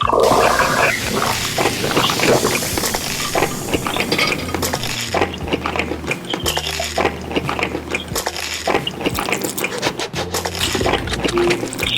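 Repeated clinks and taps of cutlery against dishes while eating, over a low steady hum.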